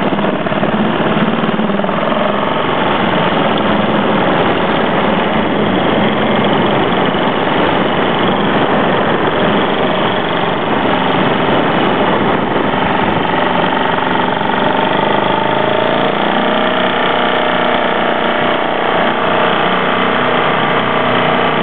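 A small boat's engine running steadily and loudly, with no change in speed.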